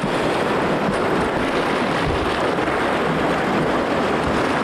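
Steady rush of whitewater rapids around a kayak, with wind rumbling on the microphone.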